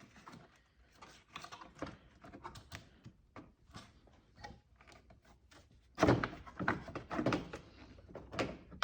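Painted headlight cover on a Mazda RX-7 FD pop-up headlight being worked up and off by hand: a string of light clicks and scrapes, with louder knocks and scraping from about six seconds in.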